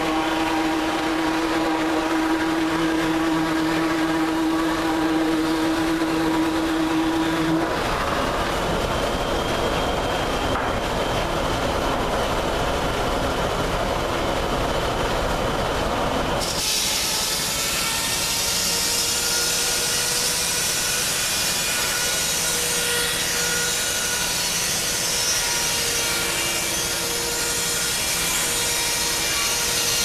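A sawmill's large circular head saw running with a steady hum. About eight seconds in a heavier rumble joins, the log carriage running along its track. From about halfway the blade cuts into the log on the carriage, a loud, steady, high sawing hiss.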